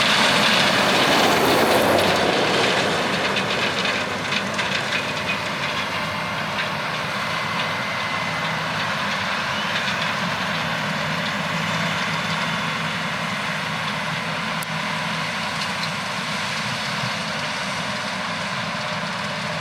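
Heavy farm machinery running steadily, most likely the John Deere S680 combine harvesting corn. It is loudest for the first couple of seconds, then settles into an even mechanical drone.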